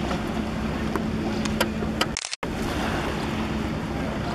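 Wind blowing over the microphone at the seashore, an even rushing noise with a steady low hum under it and a few faint clicks. The sound cuts out for a moment about two seconds in.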